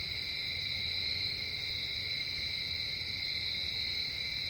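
A steady, high-pitched chorus of night insects trilling without a break, over a faint low rumble.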